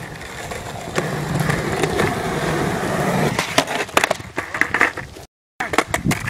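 Skateboard wheels rolling over rough concrete, then a run of sharp clacks and knocks as the board pops and hits the concrete and a ledge. The sound drops out briefly a little after five seconds in, then more clacks follow.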